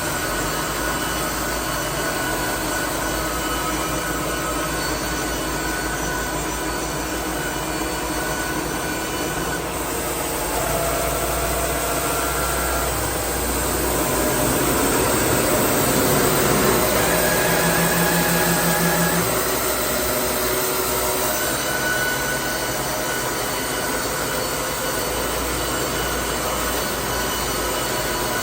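Baker band sawmill running and sawing through a log, a steady mechanical running sound with humming tones that shift, swelling louder for a few seconds around the middle.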